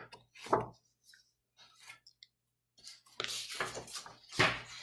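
Paper sheets rustling and being shuffled on a desk as one coloring page is put down and the next taken up, in a run of irregular strokes starting about three seconds in; a short soft rustle comes about half a second in.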